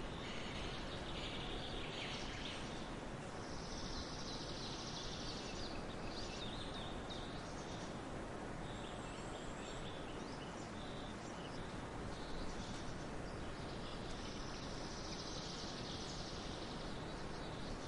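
Outdoor nature ambience: a steady hiss with scattered bird chirps and a high buzz that swells and fades twice, each time for about two seconds.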